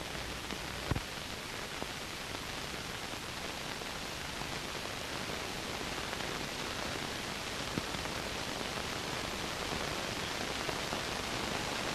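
Steady hiss of soundtrack noise with no other sound, broken only by a faint click about a second in.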